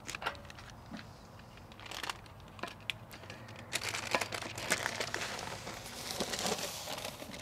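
Parchment paper crinkling and scraping as a pizza on it is slid off a peel onto the pizza stone of a ceramic kamado grill, after a few light clicks and knocks. The rustling is densest over the last few seconds.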